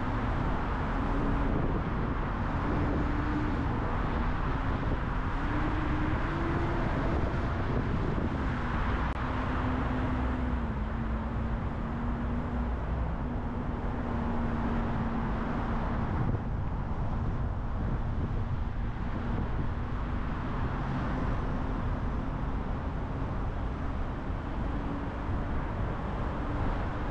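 A car driving at highway speed: steady tyre and road noise with an engine hum that wavers in pitch, stepping up over the first several seconds, then dropping and holding lower.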